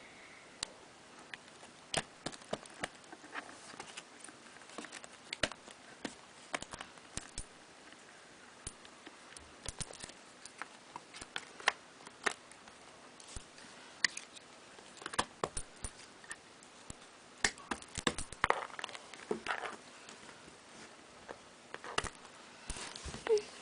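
Jigsaw puzzle pieces being handled and fitted into place: scattered, irregular clicks and taps.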